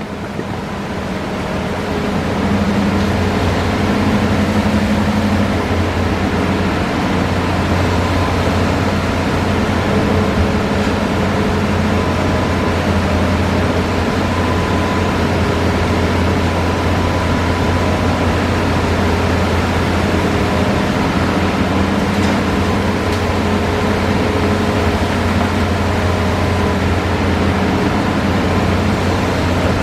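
Heavy diesel engine of a Hitachi Zaxis excavator running steadily under work, a deep even drone with small swells in level.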